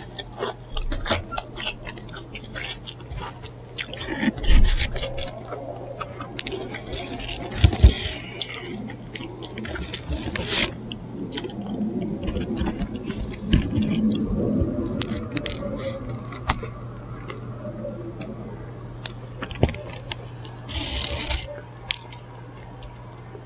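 Paper food wrappers crinkling and rustling as food is handled close to the microphone, with scattered clicks and a few soft thumps, over a steady low electrical hum.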